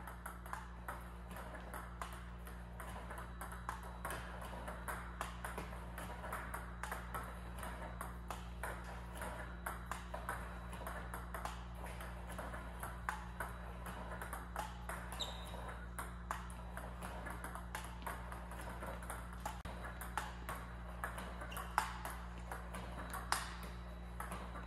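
Table tennis balls clicking in a steady practice rhythm: a robot feeds backspin balls that bounce on the table and are struck by the player's paddle with forehand loops, one to two clicks a second. A steady low hum runs underneath.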